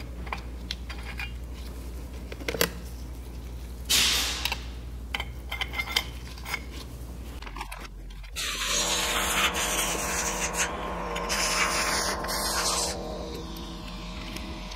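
Small metallic clicks and clinks of steel and friction clutch plates being stacked into a motorcycle clutch basket. From a little past the middle, a louder steady humming sound with a hiss lasts about four seconds.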